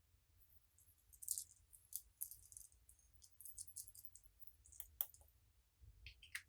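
Slime being handled, giving faint, scattered, crisp clicks and rattly crackles, with one sharper click about five seconds in.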